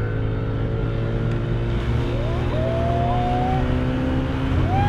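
Tow boat's engine running hard under load and slowly rising in pitch as it pulls a wakeboarder up out of the water onto the board. A drawn-out high call rises over it about two seconds in.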